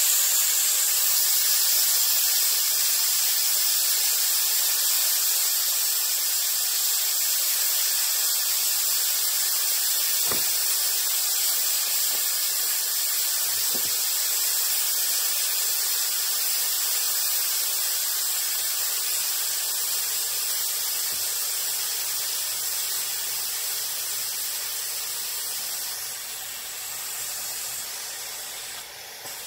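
Steam hissing steadily out of a stovetop pressure cooker's valve as the pressure is let off by hand. The hiss weakens and dies down near the end.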